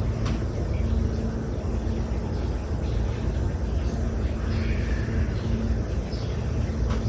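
Steady low rumble of road traffic, with a faint hum running underneath.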